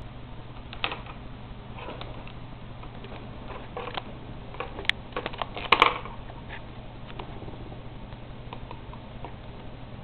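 Budgie pecking at and pushing pens and a CD on a desk: scattered light clicks and taps, with a quick run of louder clicks a little past the middle, over a faint steady hum.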